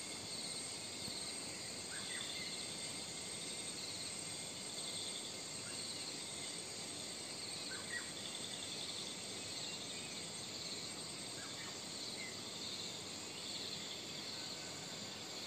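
Steady chorus of insects chirring, a pulsing cricket-like trill, with a few short bird chirps scattered through.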